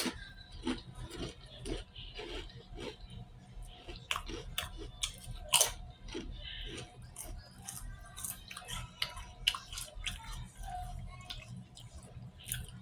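Close-miked eating: a person chewing chili dogs and crunching potato chips, with irregular wet chewing and sharp crunches. The loudest crunches come right at the start and about halfway through.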